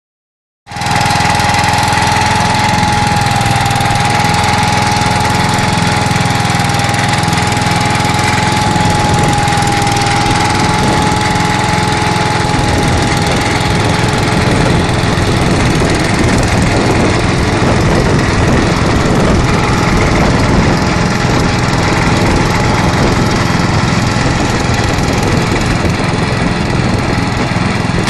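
Cramer HS 450 wood chipper running steadily with nothing being fed, its small air-cooled engine and spinning chipper making a steady mechanical din. A steady high whine rides on it and fades out about halfway through.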